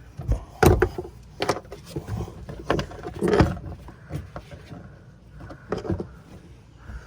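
Irregular knocks and clatter of hard parts being handled and set down, about ten strokes at uneven intervals, the loudest about a second in.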